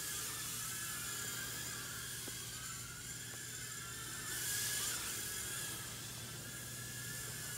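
Blade Inductrix Switch micro quadcopter flying, its four small ducted fans making a high whine whose several pitches waver up and down with throttle. The whine and airy hiss swell for about a second midway.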